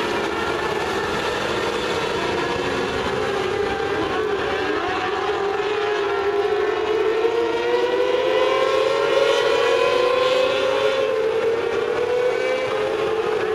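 Winged mini sprint cars racing on a dirt oval: several engines at high revs overlap in a steady, wavering whine that rises in pitch and grows louder past the middle, then eases near the end.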